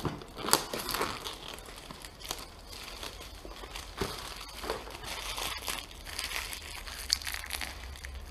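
Cardboard retail box and its packaging being handled and opened by hand: crinkling and rustling, with scattered sharp clicks and knocks.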